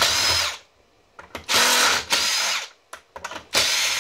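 A Ridgid brushless cordless drill runs in three short bursts as it backs bolts out of a hybrid battery module. The middle burst is the longest, and each one winds down as the trigger is released. Small clicks and rattles come between the bursts.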